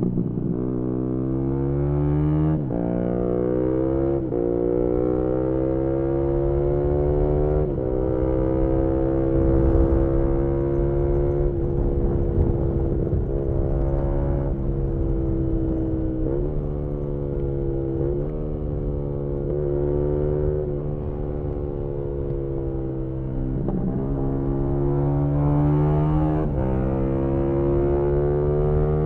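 Single-cylinder engine of a 2018 Yamaha MT-125 with an aftermarket GPR exhaust, heard onboard under hard riding: the pitch climbs as it revs out in each gear and drops sharply at each gear change, many times over, with wind rushing past.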